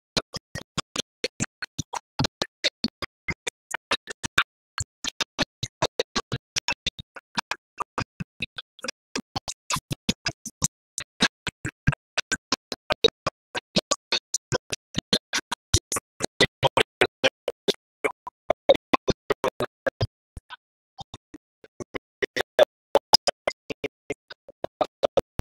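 Choppy, stuttering livestream audio from a slowing internet connection: the sound is broken into very short fragments, several a second, separated by gaps of silence, with a brief lull about 20 seconds in.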